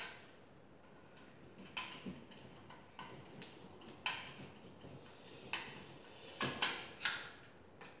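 Screwdriver working a screw on a metal electrical box, with irregular faint clicks and short scrapes of metal and wire being handled, loudest a little before the end.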